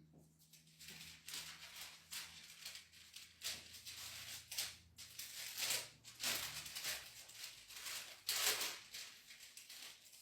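Pages of a Bible being leafed through: irregular dry rustling and brushing of paper, with louder swishes about six and eight and a half seconds in.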